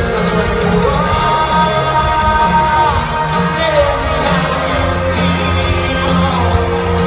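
Live pop-rock band playing in an arena, with a singer holding long notes that slide between pitches over the drums and bass. Heard through a phone microphone from the crowd, with the hall's echo.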